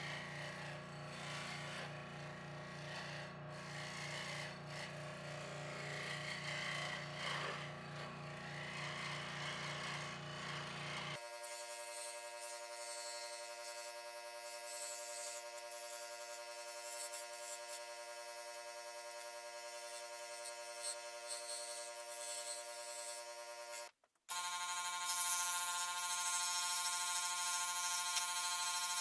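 Benchtop scroll saw running, its reciprocating blade cutting through thin wood with a steady hum. About a third of the way through, the sound changes abruptly to a steady ringing drone of evenly spaced tones with the low end gone. The drone breaks off for a moment near the end and comes back brighter.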